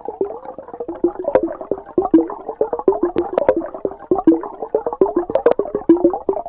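Outro music made of quick, short plinking notes, several a second, with a few sharp clicks among them.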